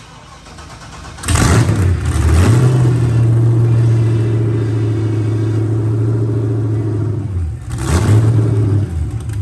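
LS V8 with a freshly installed performance cam revved hard: the engine rises sharply about a second in and is held steady at high revs for about six seconds. It drops back, then revs up again briefly near the end and falls away.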